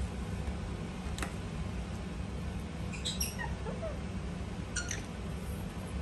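Indian ringneck parakeet giving short, high, squeaky chirps: one cluster about halfway through that slides down in pitch, and another briefly near the end. A single click comes about a second in, over a steady low hum.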